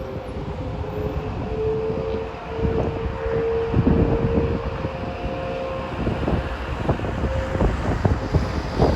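Outdoor warning sirens in the distance holding a steady wailing tone that fades after the first half. Heavy wind buffeting on the microphone is louder throughout.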